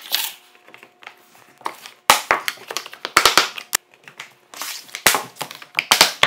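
Laminate flooring planks being handled and laid over plastic-faced foam underlayment. Scraping and crinkling are broken by several sharp knocks as the planks are set down and fitted against the laid rows.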